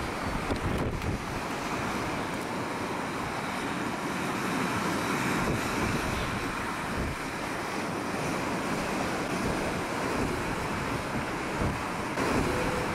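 Wind gusting across the microphone over a rough sea, with waves surging and breaking below.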